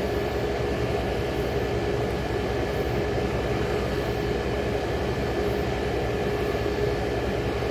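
Old General Electric Carry Cool air conditioner running steadily: an even blowing noise with a constant hum and one steady midrange tone.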